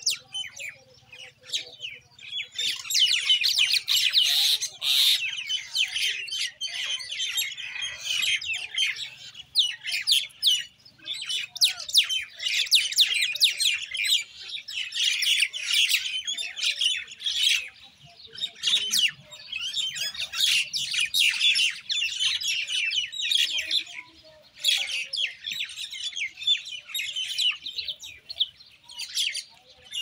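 Common mynas calling: a dense, busy chatter of sharp chirps and squawks in bursts of a few seconds, broken by brief lulls.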